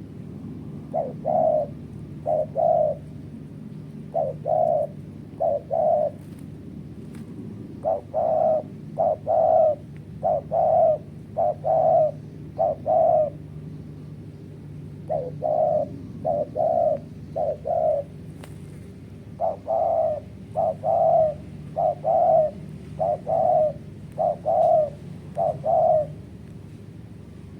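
Spotted dove cooing: phrases of repeated low coos in bursts, with short breaks between groups. A steady low hum runs underneath.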